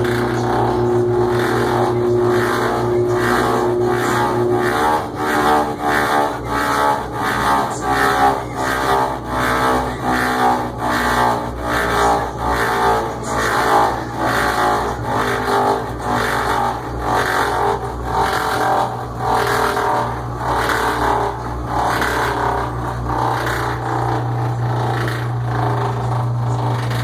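GE washing machine running with a steady motor hum and a loud, regular pulsing churn of roughly one and a half beats a second. The noise is the sign of a machine the owner considers defective even after several parts were replaced.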